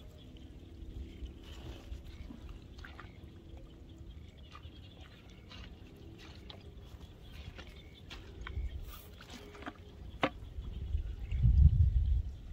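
Outdoor wet-field sound: scattered faint clicks and small wet ticks over a low rumble that swells loudly about eleven seconds in, with a sharp click a little before it.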